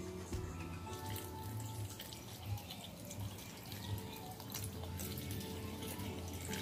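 Water pouring from a plastic bottle into a plastic blender jar, splashing onto chunks of peeled prickly pear, with background music underneath.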